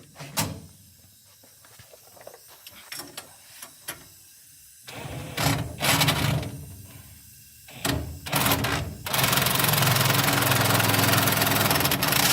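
Metal clanks and clicks of brake parts and tools being handled, then a power tool runs steadily for about three seconds near the end, spinning a part on the brake assembly.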